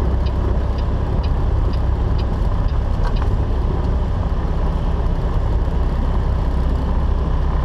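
Semi truck's diesel engine running with a low, steady hum, heard inside the cab as the truck rolls slowly forward. A light ticking, about three ticks a second, runs through the first three seconds.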